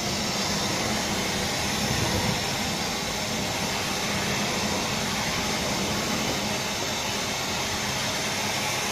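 Vacuum cleaner running steadily, its floor nozzle on a long hose being pushed along the grooves of wooden decking boards.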